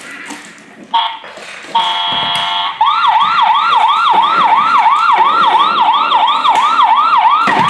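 Toy emergency vehicle's electronic sound unit: a short beep, then a longer steady tone, then a fast, repeating electronic siren sweeping up and down about three to four times a second.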